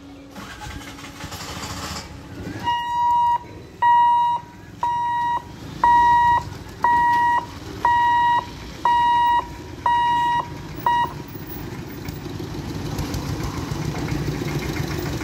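Level-crossing barrier warning buzzer beeping on one steady pitch, nine beeps about a second apart, while the boom barrier lifts. After the beeps stop, engines of road vehicles grow louder as traffic moves across the tracks.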